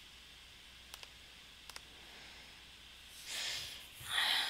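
A few faint computer mouse clicks, then the narrator breathing in and letting out a soft sigh close to the microphone.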